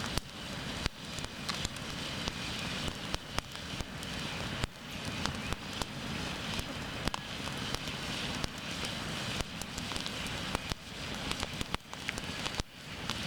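Campfire burning, the wood crackling with frequent irregular sharp pops over a steady noise.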